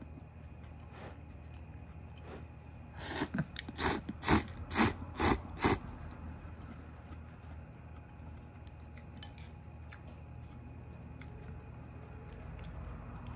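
A person slurping instant ramen noodles: a quick run of about six loud slurps, roughly two a second, about three seconds in.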